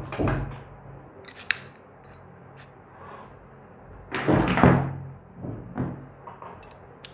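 Handling noise of a metal keyed drill chuck and a twist drill bit being fitted together by hand: scattered small clicks and knocks, with a sharp metallic click about a second and a half in and a louder burst of handling noise a little after four seconds.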